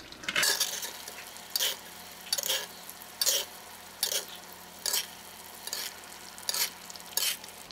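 Butter and oil sizzling in a hot cast iron skillet around a thick ribeye, while a metal spoon repeatedly scoops the fat and bastes it over the steak, with a short scrape or splash a little more than once a second.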